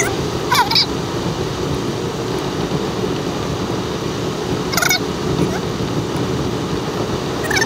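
Steady engine and road rumble heard inside a moving vehicle at night, with three short high squeaks that bend in pitch: about half a second in, near the middle, and near the end.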